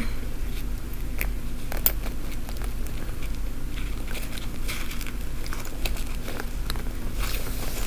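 Scattered small clicks and light rustling from handling a fabric bag while pushing a pin-back button through it and closing its clasp, with one sharper click a little before two seconds in.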